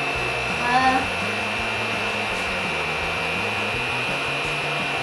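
Air blower of the Flying Sushi Kitchen toy running steadily, a whirring air noise with a steady high whine, keeping the foam sushi balls floating in midair.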